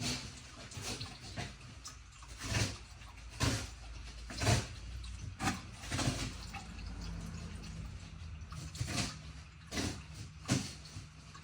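Hand tools knocking and clinking against metal engine parts during disassembly: about a dozen irregular short strikes, roughly one a second.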